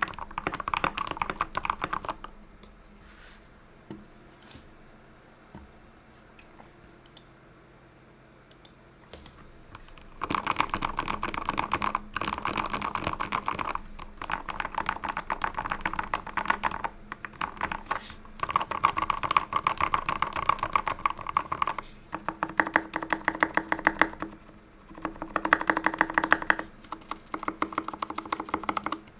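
Mechanical keyboard with hand-lubed Tealios V2 linear switches and XDA-profile PBT keycaps being typed on fast. A short burst of typing stops about two seconds in, a few lone key presses fall in a pause of about eight seconds, then steady fast typing resumes with brief breaks.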